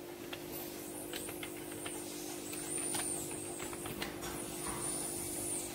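Computer keyboard keys clicking as a password is typed, about ten short taps, over a steady electrical hum. A faint high whistle rises, holds and falls twice, in the middle and near the end.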